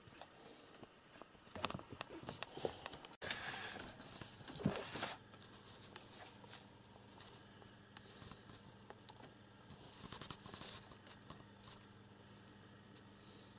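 Faint rustling and light taps, with a louder stretch of rustling a few seconds in.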